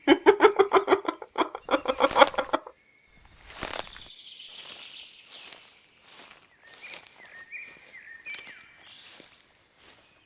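Birdsong in outdoor ambience, with short chirps and glides. Before it there is a loud rhythmic pulsing sound lasting about two and a half seconds, and about a second later a whoosh.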